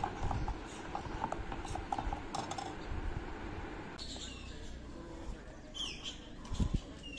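Outdoor background with a few short bird chirps in the second half, over faint murmur, and a soft thump near the end.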